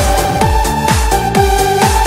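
Electronic dance music laid over the footage: a steady kick drum about two beats a second under a held synth melody.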